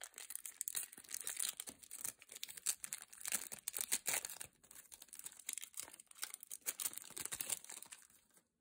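Foil wrapper of a Topps trading-card pack being torn open and crinkled by hand: a dense crackling rustle with many small crackles, which dies away near the end.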